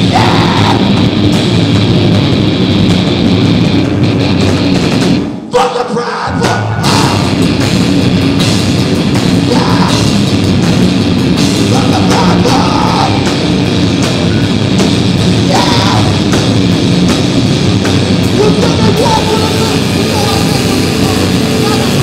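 Rock band playing live at full volume, with a heavy, distorted drum-and-guitar sound. The music cuts out briefly about five seconds in, then crashes back in.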